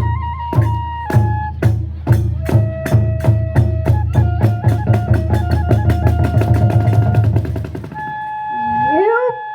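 Kagura hayashi accompaniment: drum strikes that quicken from about one a second into a rapid roll, under a flute holding long high notes. About eight seconds in the drumming stops, leaving a held note and a rising, sliding pitch.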